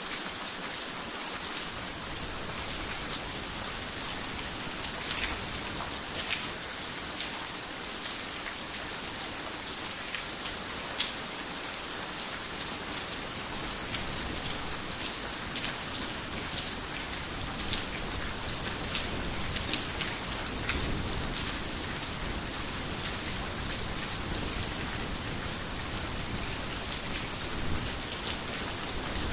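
Heavy rain falling steadily, with close drops ticking sharply here and there. A low rumble of distant thunder swells in the second half.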